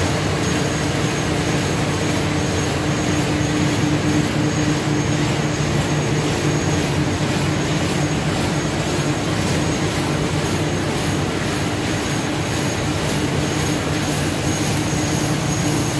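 Triumph 5 two-ply flat-handle paper bag machine running at production speed: a steady mechanical hum with a thin high whine over it and a fast, even beat from its cyclic forming and cutting.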